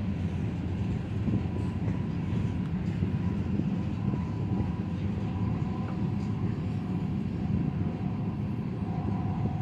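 Union Pacific freight train's covered hoppers and tank cars rolling past, a steady rumble of steel wheels on the rails, with a faint steady high whine above it.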